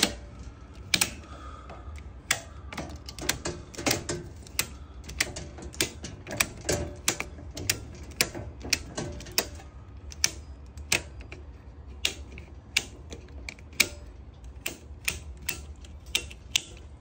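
GE circuit breakers being snapped back on one after another in a load center, a long irregular run of sharp clicks at about two a second as power is restored breaker by breaker.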